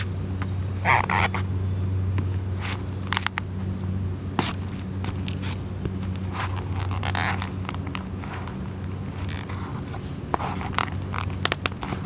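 Empty cardboard pizza box crunching and scraping under the rubber soles of leather work boots on concrete, in several separate crushes and grinds a second or two apart. A steady low hum runs underneath.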